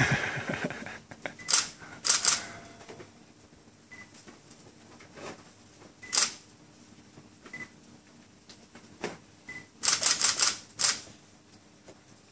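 A baby's hands slapping and patting a plastic high-chair tray in short bursts of quick taps, the longest run about ten seconds in, with quiet stretches between.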